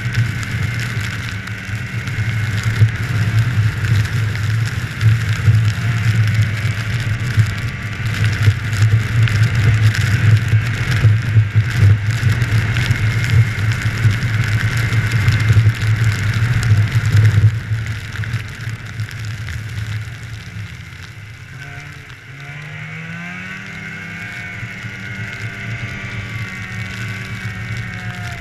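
Snowmobile running under steady throttle along a snowy trail. About two-thirds of the way through it eases off and gets quieter, then the engine revs climb again a few seconds later.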